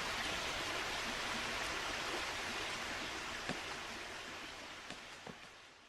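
Steady hiss of noise that begins abruptly and fades out toward the end, with a few faint clicks.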